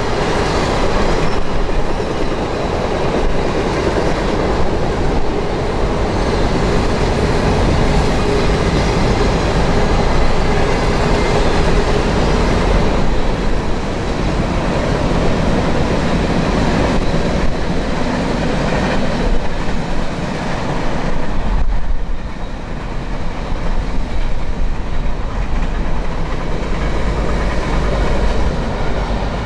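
Cars of a CSX freight train rolling past on the rails, a loud steady rumble of wheels on track. The sound eases a little about twenty-two seconds in as the passing cars change.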